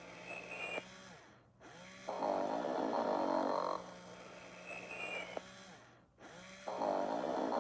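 Tyco Sing & Snore Ernie toy's recorded snoring, playing in a repeating cycle: a loud snore about two seconds in and another near the end, each followed by a short high whistle and a brief pause.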